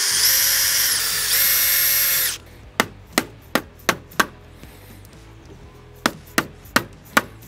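Cordless drill running at speed for about two seconds, boring a small pilot hole into a wooden insert in a metal mower handle; its whine rises as it spins up. Then a run of sharp mallet taps on the handle, five quick ones, a pause, and four more.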